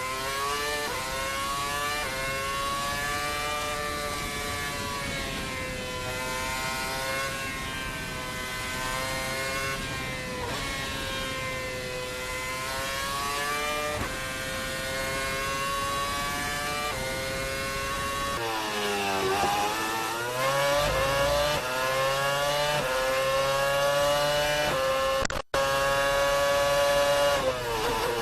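Formula 1 car engine heard onboard, its pitch climbing and falling as it revs up through the gears and drops back for corners. About two-thirds of the way in the engine sound changes abruptly, as at a switch to another car, and near the end it cuts out for an instant.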